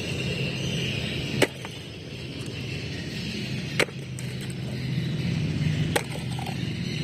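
Three sharp knocks, about two seconds apart, over a steady background hum.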